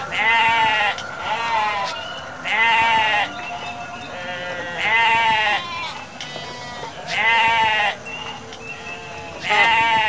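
Sheep bleating again and again: about five long, quavering bleats, each under a second, coming roughly every two seconds.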